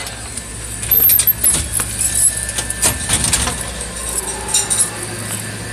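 A cat climbing a door: scattered clicks and rattles with light metallic jingling, over a steady low hum.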